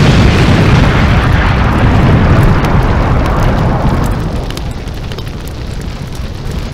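An explosion-like boom sound effect that starts abruptly, loudest in the bass, then fades slowly as a rushing noise over several seconds.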